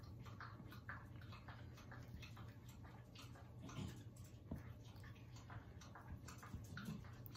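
Faint, irregular light clicks and ticks over a low steady hum, with no speech.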